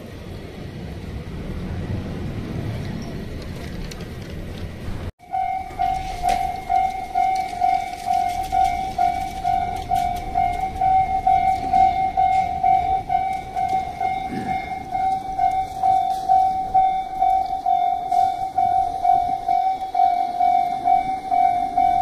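Japanese railroad crossing alarm ringing: a steady electronic bell tone repeated in a fast, even rhythm, warning that a train is coming. It starts abruptly about five seconds in, after a low rumble.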